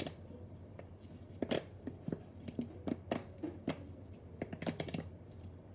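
Plastic fidget-toy pieces being handled, with irregular clicks and taps as the parts are fitted together and moved about.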